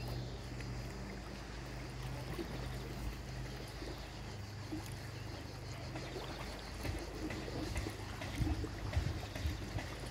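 Water splashing and lapping over a steady low hum, with a few louder splashes near the end.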